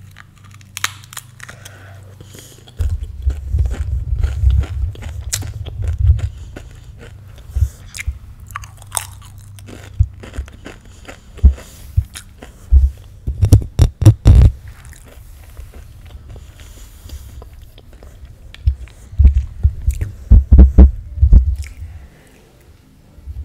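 Crunching and chewing on a crisp chip close to the microphone, in three bouts of bites and chews with short pauses between.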